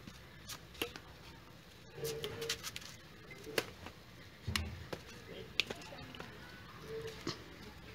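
Badminton rackets striking a shuttlecock in a rally: sharp, short clicks a second or two apart, one as a player jumps to smash. Faint voices and a dull thump come in between.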